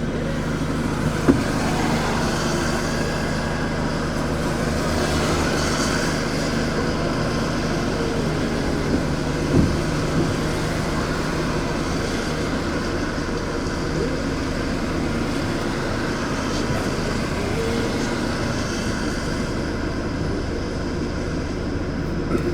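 Heavy-haulage truck's diesel engine running steadily under load as it pulls a low-loader slowly, with a couple of brief knocks.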